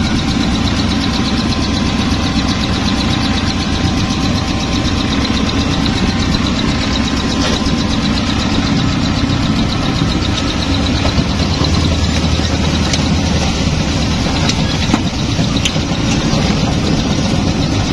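Off-road 4x4 vehicle's engine running steadily, with a few sharp clicks and knocks over it.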